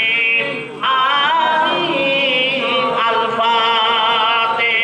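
A man's voice chanting a melodic religious recitation, with long held notes that waver in pitch and a short break for breath about a second in.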